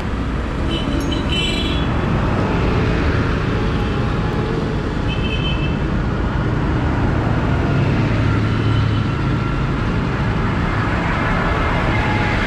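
Large diesel farm tractors running steadily as they drive past in a convoy with cars, one passing right beside the microphone near the end.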